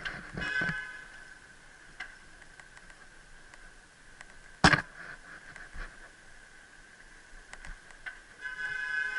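Bicycle ridden along a paved sidewalk: a faint steady whine with light ticking and rattling, short pitched squeals within the first second and again near the end, and one sharp knock about halfway through, the loudest sound.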